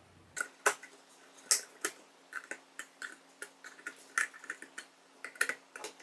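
Irregular sharp plastic clicks and knocks, about a dozen, as a small plug-in tester is pushed into and pulled out of the sockets of a six-outlet power strip one after another.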